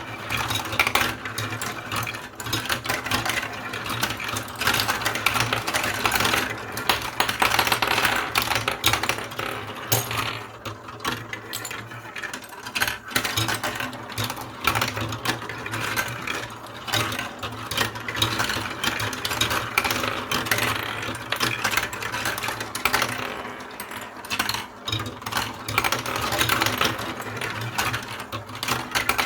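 Many marbles rolling and clattering down a building-block marble run: a continuous dense rattle of small clicks and knocks over a low rolling rumble, swelling and easing as the balls bunch up and spread out.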